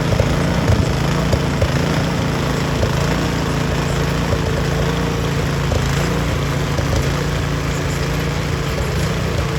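Small gasoline engine of a snowblower running steadily at constant speed.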